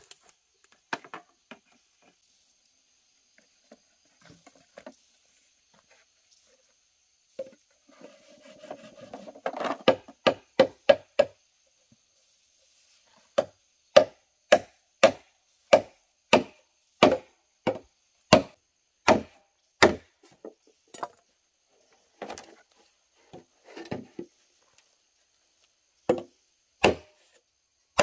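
Machete chopping into a green bamboo pole, sharp separate strikes on the wood. After a few scattered hits, a quick burst of strikes comes about ten seconds in, then an even run of about two a second, then slower, scattered blows near the end.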